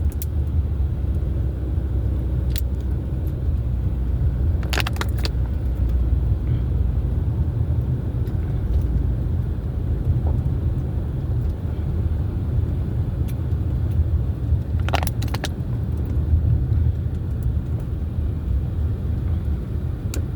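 Steady low rumble of an idling car engine, with a few brief clicks about five seconds in and again around fifteen seconds.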